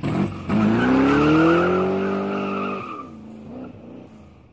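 Intro sound effect of a car engine revving with tyre screech, the engine note rising in pitch for about two seconds, then cutting off and fading away.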